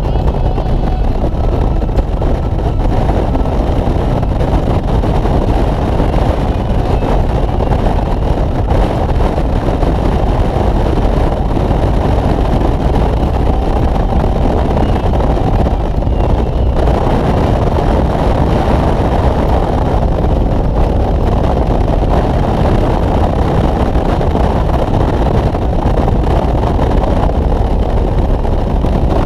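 Harley-Davidson touring motorcycle riding at a steady speed: the V-twin engine running under constant wind rush on the microphone.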